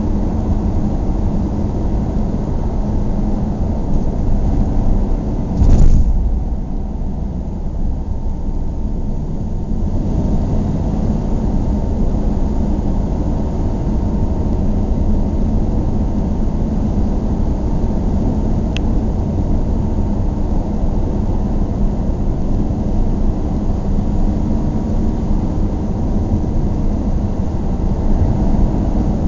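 Car driving slowly on a paved street: a steady low rumble of engine and tyre noise. A loud thump comes about six seconds in.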